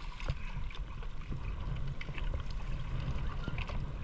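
Small fishing boat on the water: a steady low rumble with scattered light ticks and taps.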